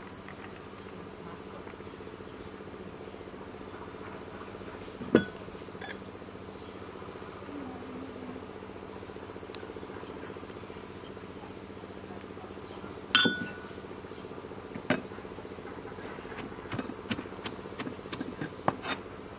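Kitchen knocks and clinks on a wooden board: a sharp knock about five seconds in and a louder clatter around thirteen seconds, then a run of quick short taps near the end as a wooden pestle pounds food on the board. A faint steady hum runs underneath.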